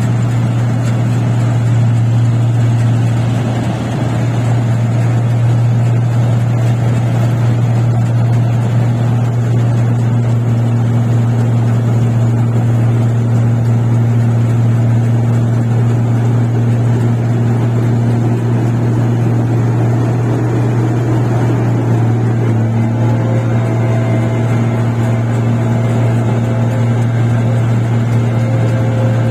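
Rice combine harvester running steadily: a loud, even engine drone with a strong deep hum that holds without a break.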